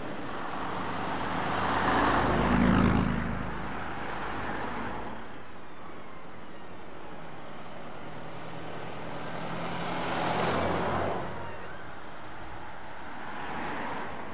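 Road vehicles driving past one after another, each swelling and fading. The loudest pass comes about two to three seconds in with a low engine note, another around ten seconds in, and a fainter one near the end.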